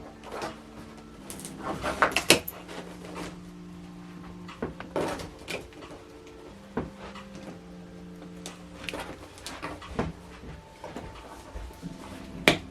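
Scattered clicks and knocks of a large TV's packaging being handled and opened, loudest about two seconds in and again near the end. Soft background music with long held notes plays underneath.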